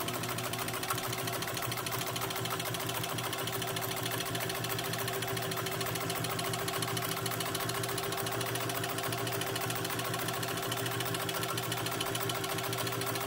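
Singer 15 sewing machine with a potted motor driving it directly through a worm gear, running at a steady speed and stitching through leather with a leather needle: a steady motor hum under a fast, even clatter of the needle and mechanism.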